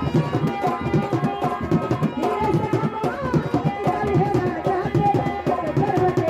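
Instrumental folk music: a fast, dense hand-drum rhythm under a wavering melody line.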